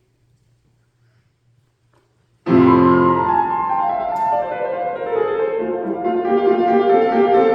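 Near silence with a faint low hum, then about two and a half seconds in a piano comes in with a loud, full chord and goes on playing classical music.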